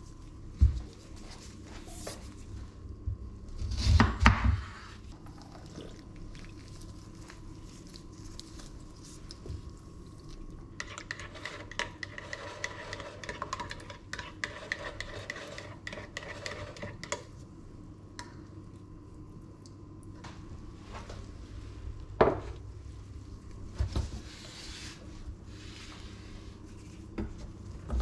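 Kitchen prep handling sounds: dishes, bowls and utensils knocked and set down on a countertop in a few sharp clacks, with a stretch of stirring or scraping in a bowl midway, over a low steady hum.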